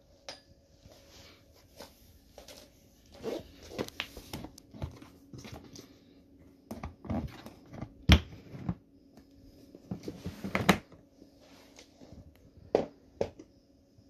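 Irregular plastic clicks, knocks and rustling as a TASKI Vento 8 tub vacuum cleaner is handled and its motor head is unclipped and lifted off; the loudest knock comes about halfway through.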